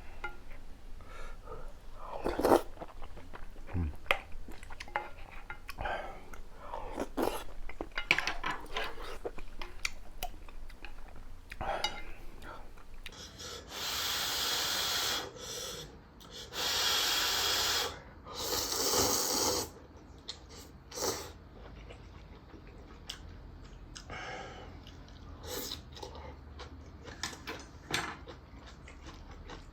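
Spicy ramyun noodles slurped in three long slurps around the middle. Before them are light clicks of utensils against a bowl, and after them small clicks of chewing.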